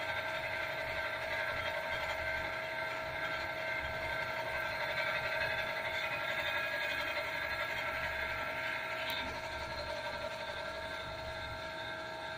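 Motor-driven potter's wheel running steadily while a clay pot is shaped on it, a constant mechanical hum-whine with several steady tones, easing slightly in the last few seconds.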